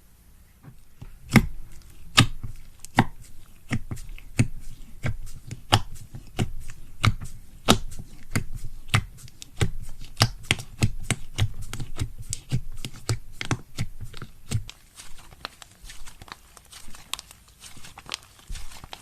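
Slime being worked by hand, giving a run of sharp pops and crackles, a loud one about every second, with the pops growing sparser and softer near the end.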